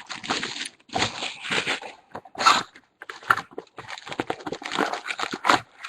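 A sealed box of trading-card packs being unwrapped and opened by hand: plastic wrap crinkling and cardboard rustling in irregular bursts as the packs are taken out.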